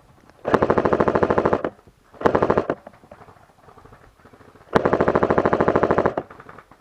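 Airsoft gun firing on full auto in three bursts of rapid shots: a longer burst, a short one, then another long one.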